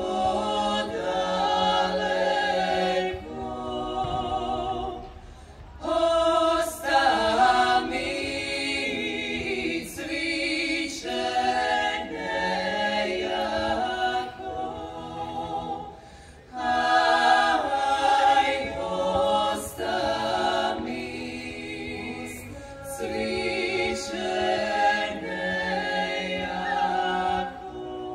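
Female klapa of six voices singing a cappella in close multi-part harmony, in long sustained phrases broken by brief pauses for breath.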